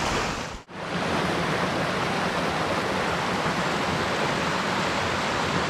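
A small mountain stream rushing over rocks and little cascades, a steady rush of water. It drops out for a moment about half a second in.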